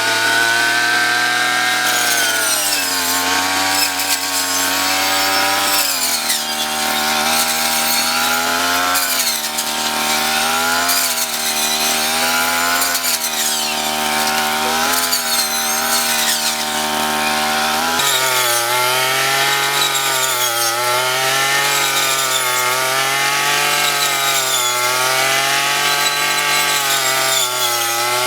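35 cc petrol engine of a handheld rice harvester running hard, its pitch dipping and recovering about every two seconds as the cutter is loaded and freed again. The sound changes abruptly twice, about six seconds in and again later.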